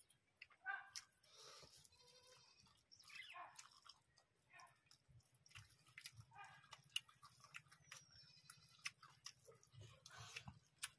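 Faint close-up eating sounds from people eating rice and curry by hand: chewing and lip smacking, with fingers squelching rice and clicking against steel plates, a scatter of small, irregular clicks.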